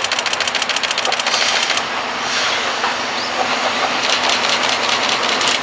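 EF60 electric locomotive hauling a train of blue passenger coaches, approaching and running past with wheels rolling on the rails. A rapid, even high ticking runs through it for the first couple of seconds and again near the end.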